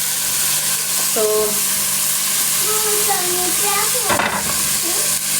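Onions, capsicum and tomato frying in hot oil in a cooking pot: a steady, loud sizzle, with a short clatter about four seconds in.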